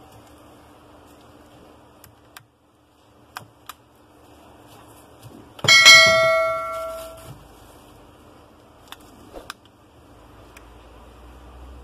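A bell-like 'ding' sound effect from a subscribe-button animation. It starts suddenly and rings on several tones at once, dying away over about a second and a half. A few sharp light clicks come before and after it.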